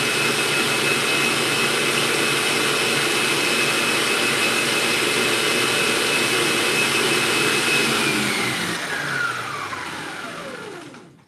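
Stand mixer running at high speed, whipping an egg white protein powder and water batter toward stiff peaks: a steady motor run with a high whine. About eight seconds in, the whine falls in pitch and the sound fades as the mixer is switched off and spins down.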